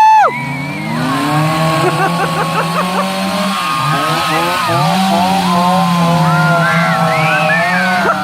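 Chainsaw engine running, its pitch stepping up and down as the throttle is worked, rising sharply about five seconds in.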